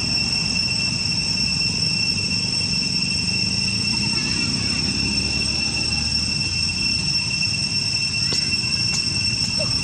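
Steady high-pitched insect drone of cicadas over a steady low rumble, with a few faint clicks near the end.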